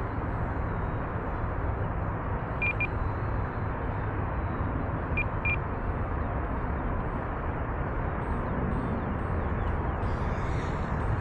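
An RC transmitter's flight timer beeping, short high double beeps every few seconds, over a steady rushing background noise.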